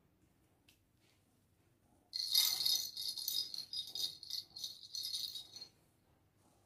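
Jingle bells inside a dumbbell-shaped plastic ball cat toy rattling as the toy is moved about. The jingling starts about two seconds in, runs for about three and a half seconds and stops abruptly.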